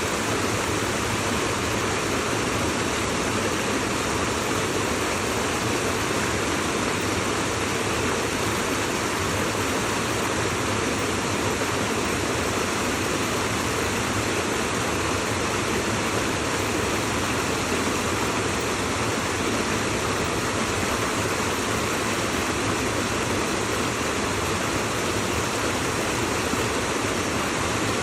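Steady rush of flowing water, an even unbroken hiss with no changes.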